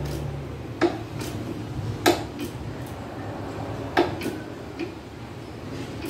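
Hand ratchet and socket tightening the Chevy Cobalt's 18 mm strut-to-knuckle bolt: sharp metallic clicks at uneven spacing, the loudest about two and four seconds in.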